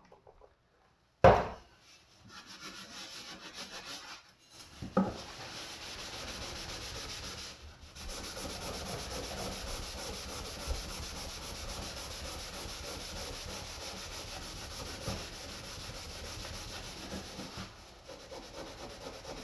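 A green scouring pad scrubbing the steel blade of a vintage Wusthof kitchen knife laid on a wooden board, with abrasive cleanser: a steady rubbing from about five seconds in, working grime off the blade before sharpening. A sharp knock comes about a second in.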